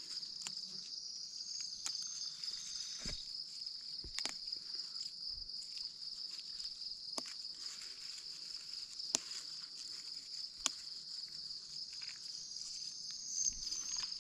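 A steady, high-pitched chorus of night insects like crickets. It is broken now and then by short sharp clicks and rustles as leafy plants are picked by hand.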